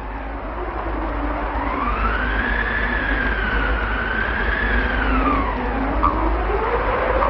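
A high, wavering tone glides slowly up, holds and then falls back over a steady hiss, and a lower tone slides upward near the end, sounding like a siren.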